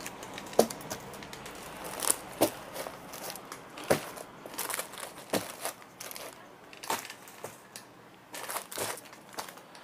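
Small plastic packets of fishing hooks being handled: irregular crinkles and sharp clicks of plastic packaging, about eight of them spread over several seconds.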